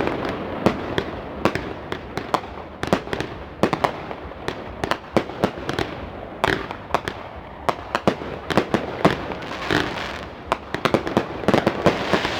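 Fireworks display: a dense, irregular run of sharp bangs and crackles over a continuous rumbling haze, thickening again near the end.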